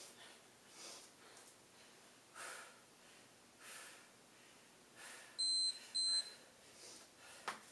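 Heavy breathing during push-ups, a hard exhale every second or so, then two short, high-pitched electronic beeps a little over halfway through, an interval timer signalling the Tabata round. A brief sharp click near the end.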